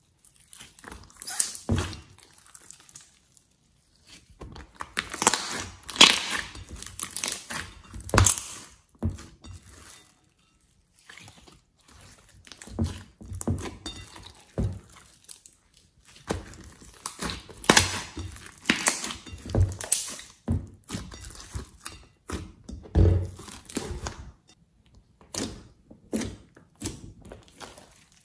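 Thick, glossy slime being stretched, kneaded, folded and poked by hand, giving irregular clusters of sticky clicks, pops and squelches, with short silent pauses between handlings.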